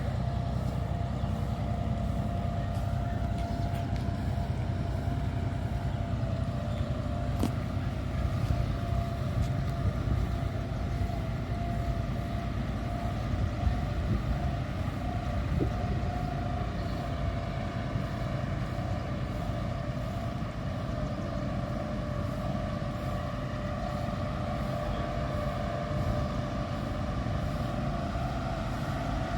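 An engine running steadily: a low drone with a faint, constant whine above it.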